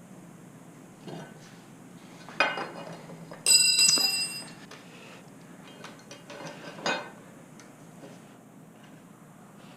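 Metal parts and tools being handled: a few light knocks, and about three and a half seconds in a loud bright metallic clink that rings for about a second.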